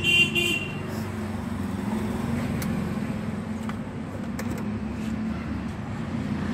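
Steady rumble of street traffic, with an engine running close by. A short high beep sounds right at the start.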